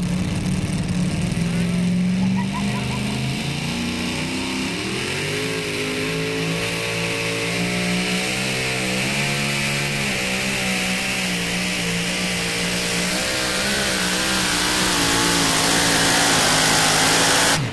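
Supercharged engine of a Super Mod 2WD pulling truck running at a steady rev while hooked to the sled. About five seconds in it rises in pitch as the throttle opens and the truck pulls the sled. It then runs hard at high revs, wavering with the load and getting louder toward the end.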